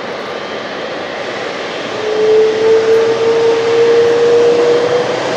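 Boeing 777-300ER's GE90-115B turbofan engines running as the airliner taxis: a steady jet rush. About two seconds in, it grows louder and a whine comes in that slowly rises in pitch, as thrust is added.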